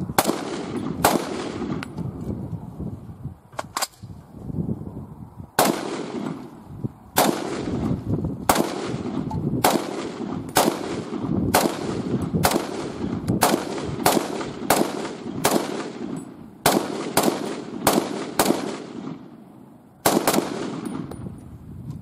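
Rapid semi-automatic fire from a muzzle-braked Noreen BN36 rifle in .30-06: about twenty loud shots, each trailing a long echo. The shots start roughly a second apart and quicken to under a second apart, with two short breaks in the string.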